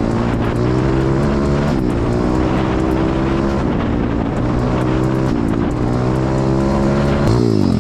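A pit bike's single-cylinder four-stroke engine accelerating through the gears. Its pitch climbs, drops at each shift about every two seconds, and climbs again, then falls away near the end as the throttle closes.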